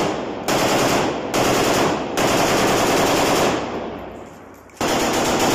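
AK-47 assault rifle firing on full automatic in long, rapid bursts, several strings back to back. After about a second's lull, a last burst comes near the end; each string trails off in echo.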